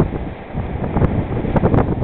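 Wind buffeting the microphone over breaking ocean surf, getting louder and gustier from about a second in.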